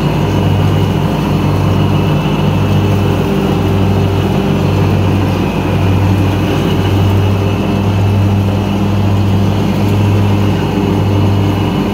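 Gravely mower's engine running steadily while chopping leaves, with a slow regular throb about once a second.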